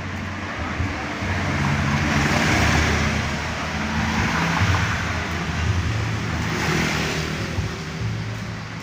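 Road traffic: motor vehicles passing with a steady engine hum beneath, the noise swelling twice as vehicles go by.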